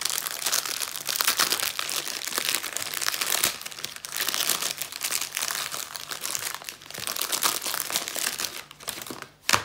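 Clear plastic overwrap being torn open and pulled off a microwave popcorn bag, the film and bag crinkling and crackling continuously under the hands. A single sharp snap near the end is the loudest sound.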